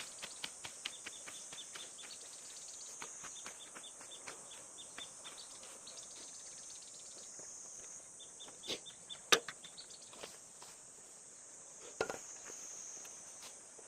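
Outdoor summer ambience: a steady high insect drone with many small clicks and ticks over it, and a sharper crack about nine seconds in and another near twelve seconds.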